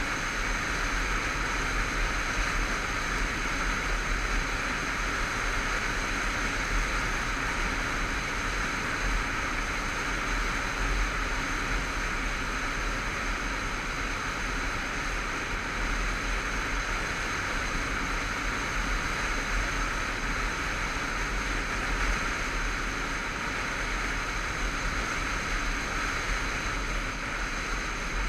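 Motorcycle cruising at a steady speed, heard as steady wind rush over the helmet camera's microphone with engine and road noise underneath.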